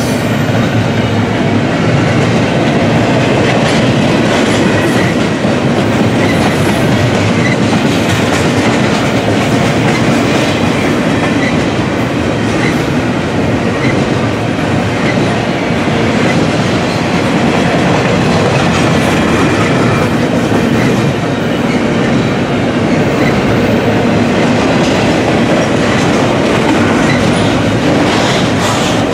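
Double-stack intermodal container train's well cars rolling past: a loud, steady rumble of steel wheels on the rails that holds even throughout.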